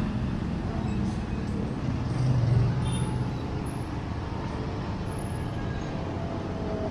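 Street traffic: a steady rumble of motor vehicles, with one engine running close by and loudest a couple of seconds in.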